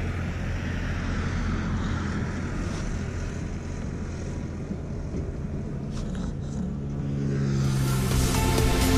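Wind noise on the microphone over a low, steady rumble. Background music fades in near the end.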